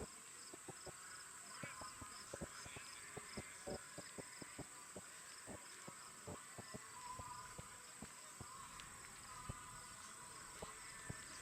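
Steady high-pitched chirring of insects such as crickets, with many scattered short clicks and taps over it.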